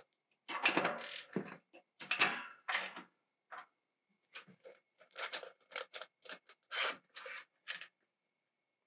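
Ratchet wrench clicking in a series of short bursts as bolts on an exhaust fan's mounting bracket are tightened, louder in the first few seconds and fainter after.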